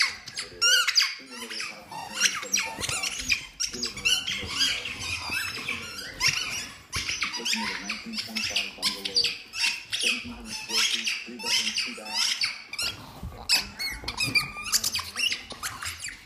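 Kong Squeeze squeaky rubber dog ball squeaking over and over as a dog chews it: rapid runs of short, high squeaks that go on without a break.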